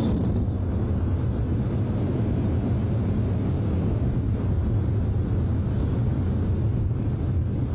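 Wind buffeting the microphone outdoors: a steady, low rumbling roar with no break or change.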